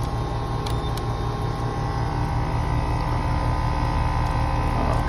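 Trane 2-ton central air conditioner's outdoor condensing unit running: the compressor and condenser fan motor give a steady, loud hum, with a couple of light clicks about a second in.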